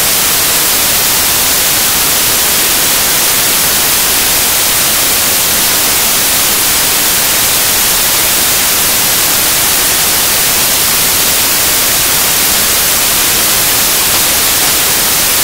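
Loud, steady static hiss covering everything, with no speech, music or other sound in it: the soundtrack is replaced by white noise, an audio fault in the upload.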